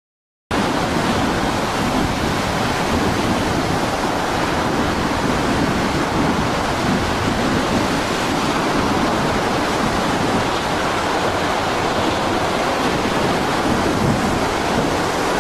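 Storm wind and rough sea: loud, steady rushing noise that starts abruptly about half a second in.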